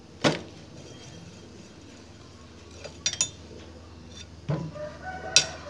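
Metal wrench clinking against the front sprocket's 10 mm bolts and the motorcycle's steel parts as the bolts are undone: a sharp click near the start, a few light clinks about three seconds in, and a louder clink with a brief ring near the end.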